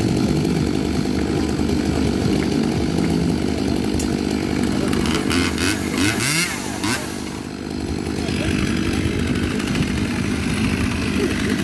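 Chainsaw running at speed, easing off briefly about seven seconds in before picking up again.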